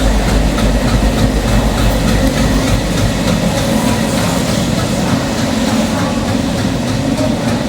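Indian Railways train rolling along the track, a steady loud rumble of wheels and carriages that eases slightly about halfway through.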